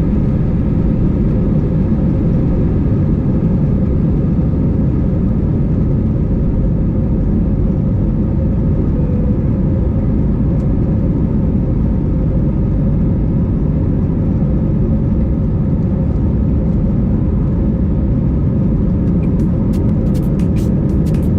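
Airbus A320's jet engines heard from inside the cabin at takeoff power: a loud, steady rumble with a constant hum. A run of light clicks comes in near the end.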